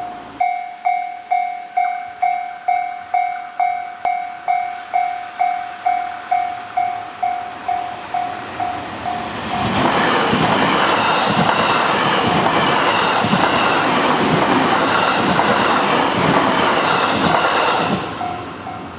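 Japanese level-crossing warning bell ringing its repeating 'kan-kan' tone, about two strikes a second. About ten seconds in, a Hanwa Line electric train passes through the crossing, its wheels clattering over the rail joints and drowning out the bell until it clears near the end.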